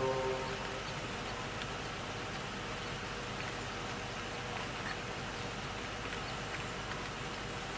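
Outdoor bush ambience: a steady, even hiss with a faint insect-like drone and a few short, faint chirps or ticks. The tail of background music fades out in the first moment.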